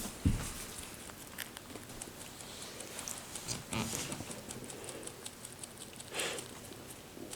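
Baby rabbits nibbling and rustling leafy wild greens: quick, soft, crisp clicks of chewing with a few brief rustles, and a low thump just after the start.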